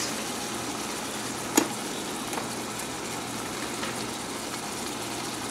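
Ground beef frying in a pot: a steady low sizzle, with one sharp click about a second and a half in.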